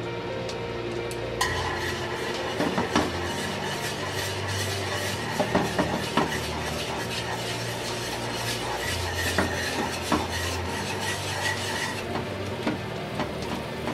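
Beaten egg and milk cooking in a nonstick frying pan as it is stirred into scrambled egg, with utensils scraping and tapping irregularly against the pan. A hiss of sizzling comes in about a second and a half in and drops away near the end.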